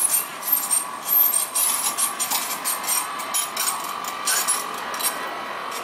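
Alstom Citadis X05 light-rail tram passing close on curved track: its steel wheels make rapid irregular clicking and scraping on the grooved rails, over a steady whine.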